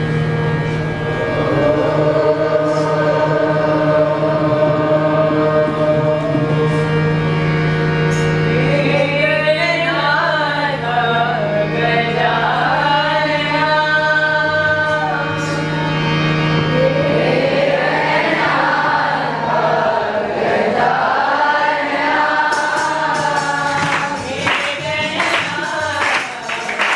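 A group of boys singing a Hindu devotional song (bhajan) in unison over a steady low drone, which stops about two thirds of the way through. Rhythmic handclaps keeping the beat join near the end.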